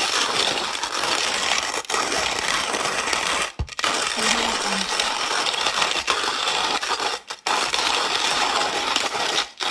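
Hand-cranked coffee grinder crushing whole beans, a steady coarse crunching broken by brief pauses about two, three and a half and seven seconds in.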